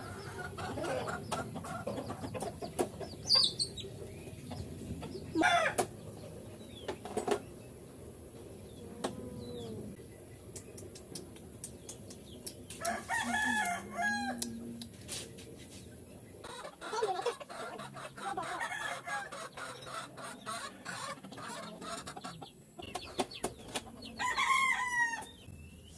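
Chickens clucking and a rooster crowing now and then, over a run of short sharp clicks and taps of a knife cracking open sea urchin shells.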